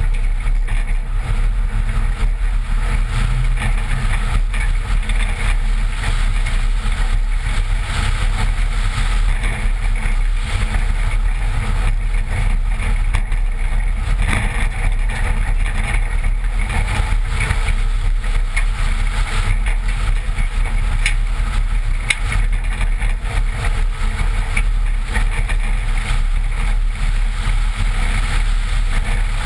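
1986 Toyota pickup driving over a gravel dirt road, heard from a camera mounted on the outside of the body beside the front wheel. A steady low rumble of tyres, wind on the microphone and engine, with a few small knocks from stones or the suspension along the way.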